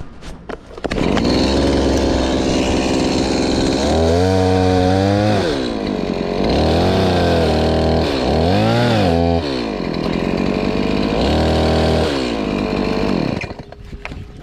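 Chainsaw running at full throttle, its pitch rising and falling several times as it is revved up and eased off, then dying down near the end.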